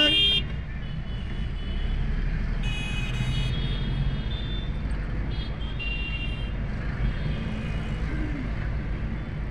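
City road traffic heard from a moving vehicle: a steady engine and road rumble. A loud horn blast sounds right at the start, and a few fainter, higher horn beeps come about three and six seconds in.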